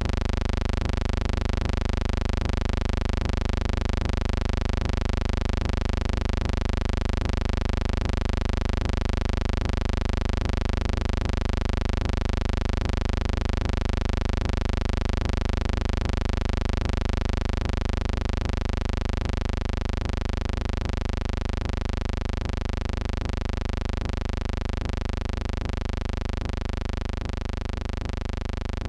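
A steady low buzzing hum with many even overtones, holding one unchanging pitch and easing slightly in loudness in the last third.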